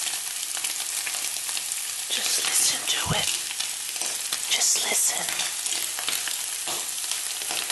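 Bacon rashers frying in a pan: a steady sizzle, with a few brief louder pops and spits about halfway through.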